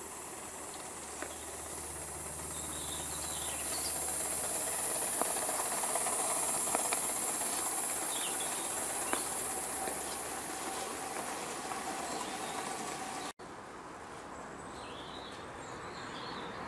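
O gauge live steam model GWR King locomotive and coaches passing close by, a steady steam hiss with sharp clicks of wheels over the track. It swells to a peak about six seconds in and fades, then cuts off suddenly near the end, leaving quieter outdoor background.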